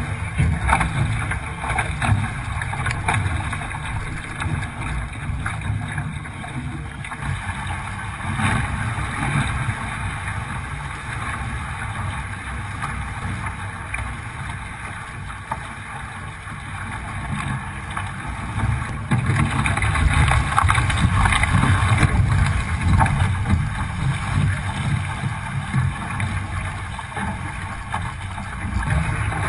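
Wind buffeting the microphone of a camera mounted on a Hobie 16 catamaran, with water rushing and splashing along the hull as it sails at speed. The noise grows louder for several seconds past the middle.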